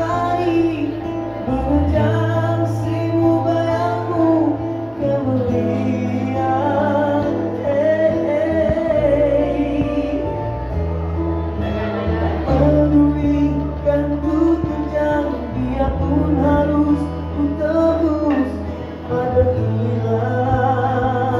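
A man singing live into a microphone, backed by electric guitar and bass guitar through a PA, with long held bass notes under the vocal line.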